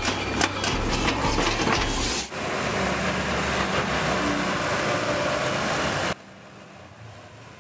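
Demolition of a concrete wall by an excavator: irregular knocks and cracking concrete over a low rumble, for about two seconds. Then a steadier heavy-machine engine noise, which drops sharply to a faint hiss about six seconds in.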